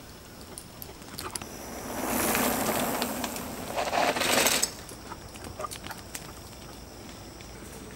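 A rushing, crunching noise of movement along a dirt forest trail swells for a few seconds and cuts off abruptly about four and a half seconds in. After it comes a quieter stretch with faint, scattered light ticks, such as a dog's paws on dirt as it runs along the trail.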